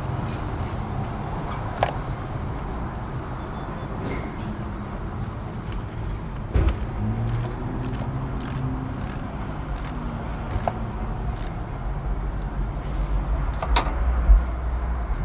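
Light metallic clicks and clinks of hand tools at the car battery's terminal, over a steady low rumble, with a sharper knock about halfway through and another near the end.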